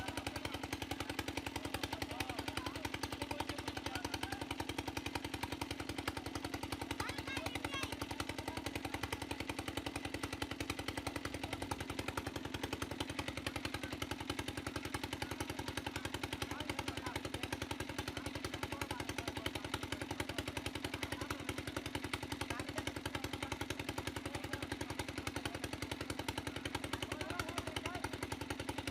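Engine of an irrigation water pump running steadily with a fast, even beat, with faint voices of people in the background.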